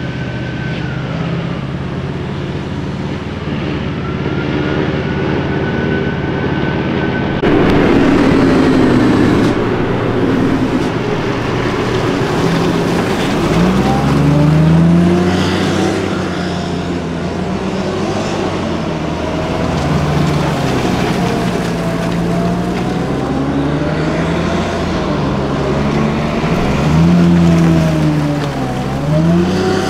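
Military vehicles driving by with engines running. Partway through, eight-wheeled Piranha 5 armored personnel carriers pass close, their diesel engines rising and falling in pitch as they turn and pull away.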